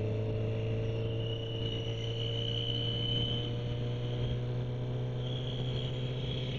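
Motorcycle engine running steadily at cruising speed, with a thin, high, steady whistle over it that comes in about a second in, fades near the middle and returns near the end; the riders put the whistle down to the Triumph.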